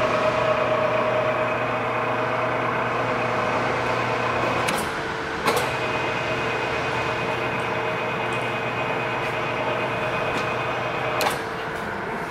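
Aronson welding positioner's single-phase electric tilt drive running as the table tilts, a steady motor and gear whine with several high tones. Sharp clicks about five seconds in and again near the end mark changes in the drive's sound.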